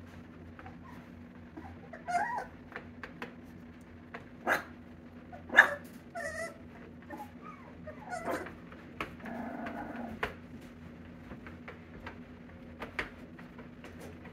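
A litter of F1B mini Bernedoodle puppies at play, giving scattered short yips and whimpers and a brief low growl, with small clicks from paws and toys. The loudest yip comes a little over halfway through.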